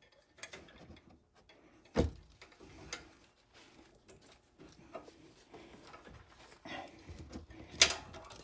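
Scattered metal clicks and knocks as a brake rotor and caliper are handled and moved into place on a car's wheel hub, with a sharper knock about two seconds in and another near the end.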